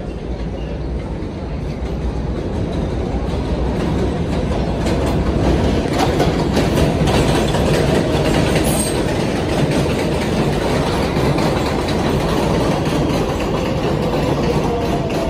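New York City subway 4 train on the elevated steel structure, growing louder as it approaches and runs past, its wheels clattering over the rail joints. Near the end a faint whine sags slightly in pitch.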